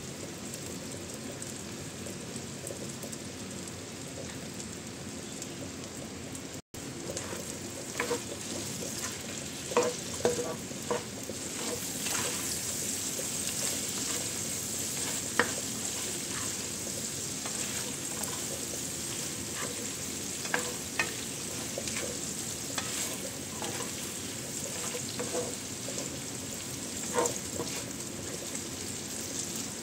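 Shrimp frying in a nonstick pan in a butter, garlic and soy sauce, sizzling steadily. A spatula taps and scrapes against the pan now and then as the shrimp are stirred.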